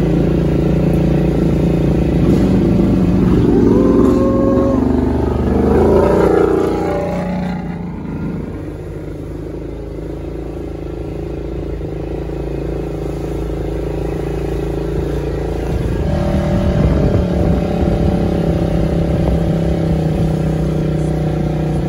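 ATV engine running under throttle. It is loudest for the first several seconds, eases off, then picks up again about two-thirds of the way in.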